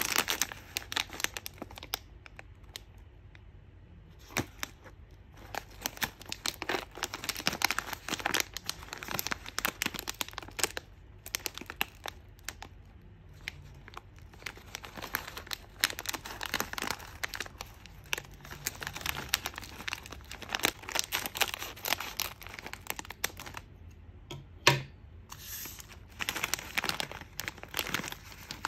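Plastic film wrapper of a Dondon-yaki rice-cracker snack crinkling irregularly in the hands, then torn open. The loudest snap comes near the end.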